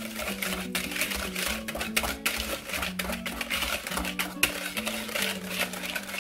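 Wire whisk beating a wet egg, sugar and sour-cream batter in a plastic measuring jug: a fast, irregular run of clicks and scrapes as the wires strike the jug. Soft acoustic guitar music plays underneath.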